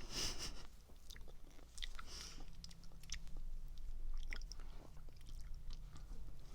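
Chewing and biting into strawberry mochi, with many small scattered mouth clicks.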